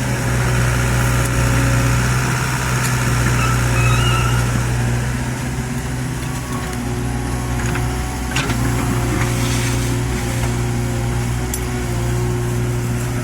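Heavy excavator's diesel engine running steadily under work, with a few light metallic knocks about eight seconds in.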